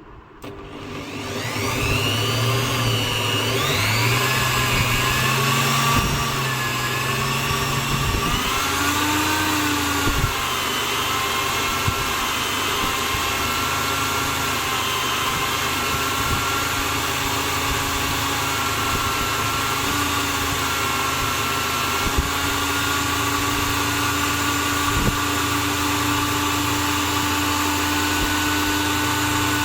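Electric drill motor spinning up with a rising whine about a second in, then running steadily at speed, with a few short ticks.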